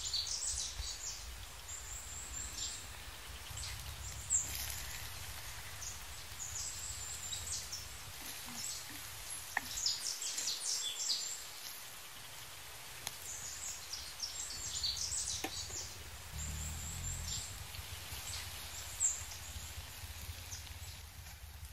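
Hot oil crackling and spluttering in a clay kadai as mustard seeds pop and chopped onion fries: irregular clusters of sharp crackles over a low steady rumble.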